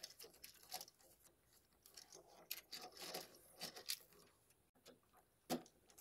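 Near silence with faint, irregular small clicks and rustles: hands handling a GFCI receptacle and its attached wires.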